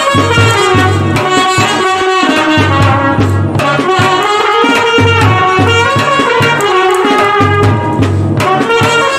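Kerala band set: a trumpet plays a sustained melody over snare drum strokes and a repeating bass drum beat.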